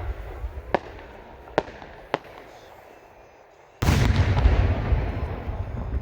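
Fireworks aerial shell, a single No. 5 art shell: three short sharp cracks in the first couple of seconds, then a loud boom about four seconds in that rumbles and echoes on.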